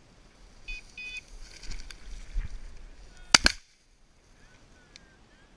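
Two short electronic beeps about a second in, then brushing through tall dry grass, and a shotgun shot about three seconds in with a second report close behind it. The sound then cuts off suddenly.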